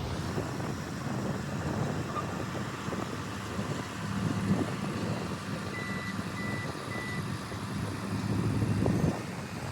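Farm machinery engine running steadily while soil is spread over the seed potatoes. About six seconds in there are three short, high beeps.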